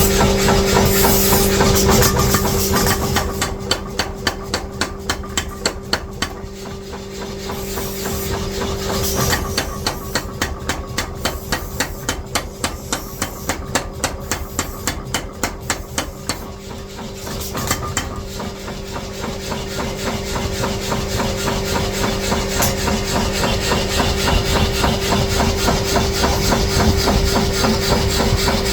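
Rapid, regular hammer blows on steel being forged, over a steady machine hum.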